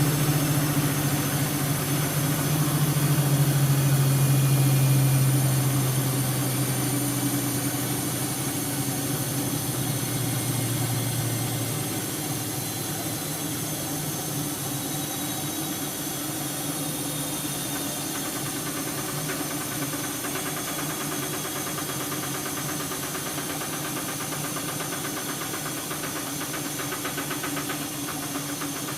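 Siemens washing machine slowing down from a spin: its motor hum falls gradually in pitch and fades over the first dozen seconds, leaving a quieter steady whir of the turning drum.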